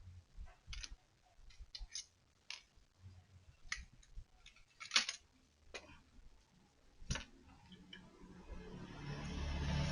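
Irregular light clicks and taps, the loudest about five seconds in, then a low hum with hiss swelling up from about eight seconds in.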